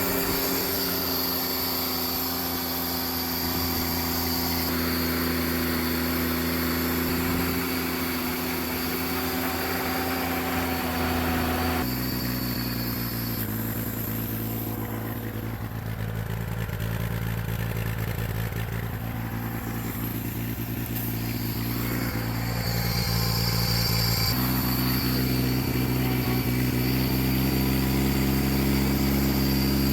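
1988 John Deere 322's Yanmar three-cylinder gasoline engine running steadily at idle. Its note changes abruptly twice, about 12 and 24 seconds in.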